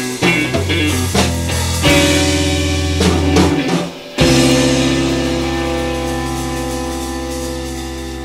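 Psychedelic rock trio of electric guitar, bass guitar and drum kit jamming, recorded on a cassette deck: drum hits under moving bass and guitar notes. A little after four seconds in, after a brief break, a chord is struck and left to ring, slowly fading.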